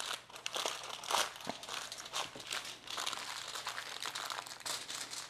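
Aluminium foil crinkling and crumpling in irregular bursts as hands fold it and press it tight around a rack of spare ribs.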